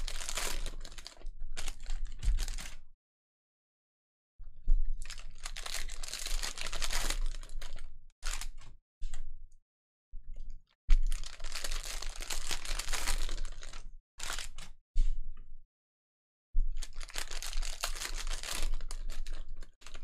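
Trading card packs being handled and stacked on a table: repeated bursts of crinkling and light clicking, each a few seconds long, with gaps of silence between them.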